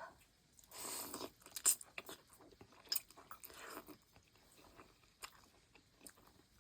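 A person eating noodle soup close to the microphone: chewing and mouth sounds, with a short noisy rush about a second in and another near four seconds, and scattered small clicks between.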